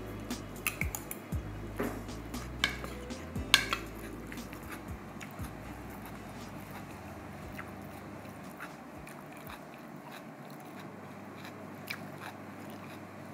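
Close-up chewing and crunching of fresh salad, lettuce and cucumber, with short sharp crunches in the first four seconds that thin out to softer chewing.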